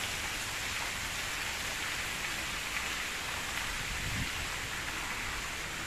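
Steady rush of falling water splashing into a pool from a large man-made waterfall, with a brief low thump about four seconds in.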